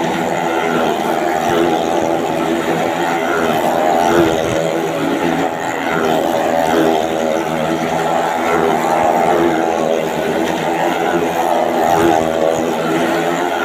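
Motorcycle engine running steadily as the bike laps the vertical wooden wall of a well-of-death pit, its pitch swelling and falling about once a second with each pass.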